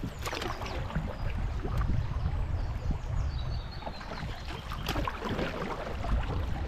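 Open canoe running through a riffle of a river: water splashing and lapping irregularly against the hull, over a steady low rumble.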